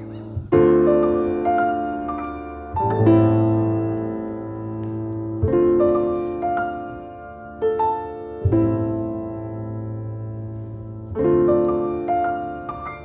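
Grand piano playing slow, sustained chords: a new chord is struck every two to three seconds over a deep bass note and left to ring and fade.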